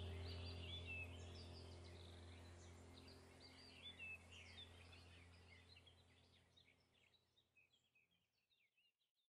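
Background nature ambience: many small birds chirping over a low steady hum, fading out gradually to silence near the end.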